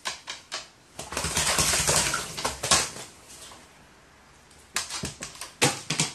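Irregular sharp taps and clicks, with a stretch of dense rustling and clattering in the first half and more scattered taps near the end.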